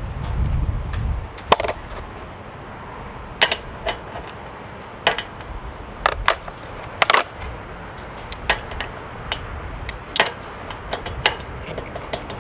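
Scattered sharp clinks and knocks, about one every second or so at irregular intervals, from tools and parts being handled during a mower wheel change, with a low rumble in the first second.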